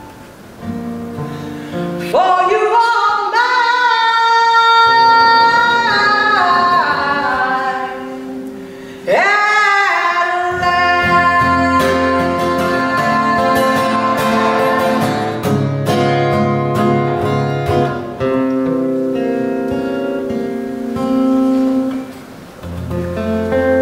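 A woman singing a slow ballad into a microphone over a strummed steel-string acoustic guitar. Two long vocal phrases of held notes that step downward in pitch start about two and nine seconds in. Near the end the voice stops and the guitar plays on alone.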